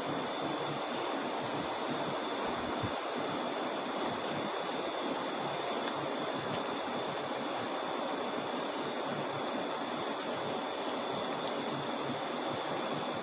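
River water rushing steadily, swollen after a flood, with two steady high-pitched tones held above it.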